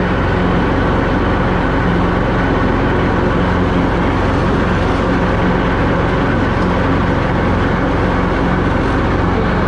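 John Deere zero-turn mower's engine running steadily at a constant pitch while mowing tall grass with the 54-inch deck's freshly sharpened blades.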